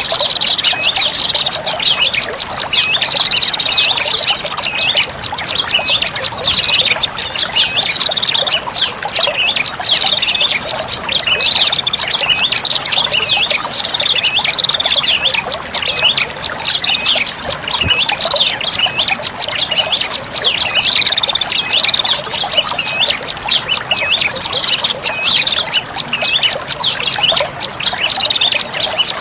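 Prenjak lumut call used as a bird lure: a fast, unbroken chattering of high ticks with repeated short hooked chirps, going on without pause.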